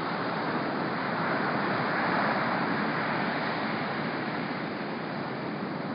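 Ocean surf from a large storm swell breaking and washing ashore: a steady rush of noise that swells about two seconds in as a wave breaks.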